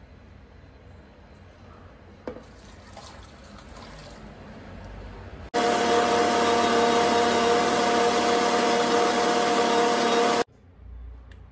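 Water poured into a mixer jar of sliced amla, cucumber, ginger and mint. About five seconds in, an electric mixer grinder switches on and runs loud at a steady pitch, grinding them into juice, then cuts off abruptly near the end.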